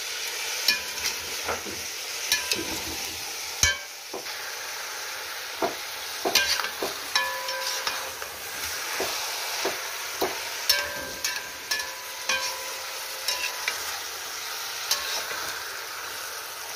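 Rabbit meat and onions frying in oil in a kazan, sizzling steadily while a utensil stirs them, scraping and clinking against the pot many times.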